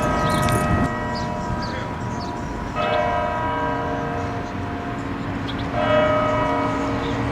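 A large bell tolling slowly, struck three times about every three seconds, each stroke ringing on with several steady overtones until the next. A clattering noise sounds under the first stroke.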